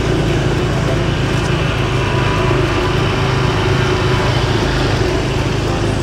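A motor vehicle's engine running steadily with road noise while driving, an even low hum.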